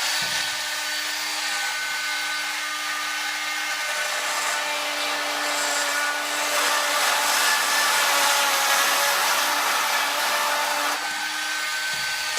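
Bosch GOP 10.8 V-LI cordless oscillating multi-tool running with a steady high hum, its Starlock wood-and-metal plunge blade cutting into plastic mini-trunking. A rasping cutting noise rises over the hum through the middle and eases off near the end.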